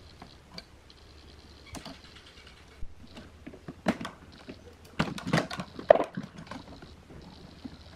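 Circuit board of an opened Crown power amplifier being handled and lifted in its chassis: a scatter of small plastic and metal clicks and rattles, loudest in a cluster around the middle.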